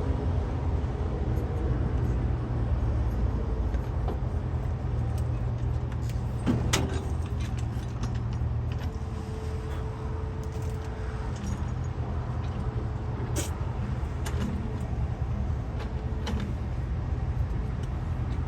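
Diesel engine of a JCB backhoe loader running steadily, with a few sharp knocks, the loudest about seven seconds in.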